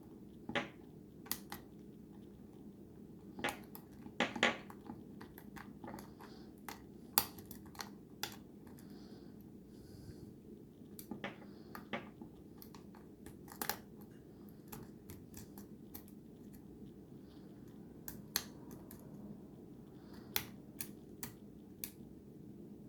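A lock pick working the security pins of a Schlage lock cylinder in single-pin picking: irregular small clicks, now single, now in quick clusters, as pins are lifted and set.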